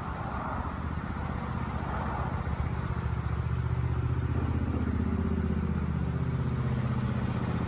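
John Deere riding lawn mower's small engine running as the mower drives up, steadily growing louder, its pitch dipping a little about five seconds in.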